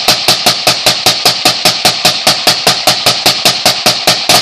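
Suppressed Bushmaster ACR rifle firing a fast, even string of shots, about five a second, emptying a magazine to heat the barrel and handguard.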